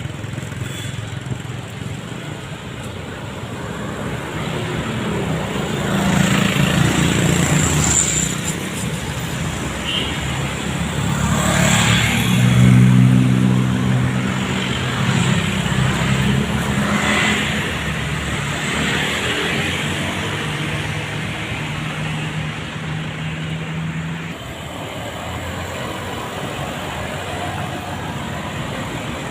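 Highway traffic passing: the engines of large vehicles swell and fade as they go by, the loudest passing about 12 to 14 seconds in, over steady road noise.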